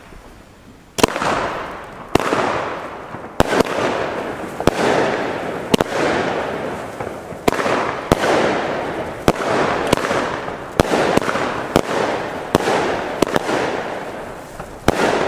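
A fireworks cake (battery) firing shot after shot, roughly one a second: each sharp bang is followed by a hissing, crackling tail that fades over about a second.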